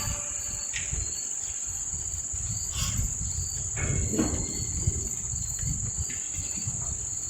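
Insects, likely crickets, giving a continuous high-pitched chirring, with a low rumble underneath.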